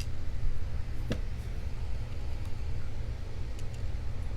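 Small metal clicks of lock parts being handled while a lock cylinder is gutted: one sharp click about a second in and a few faint ticks later, over a steady low hum.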